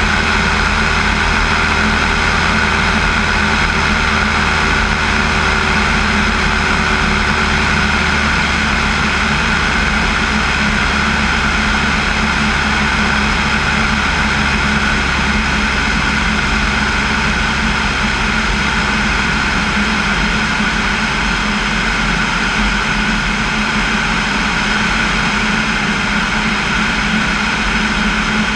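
Single-engine light airplane in flight: the piston engine and propeller drone steadily, with the rush of passing air, heard from a camera mounted outside the fuselage.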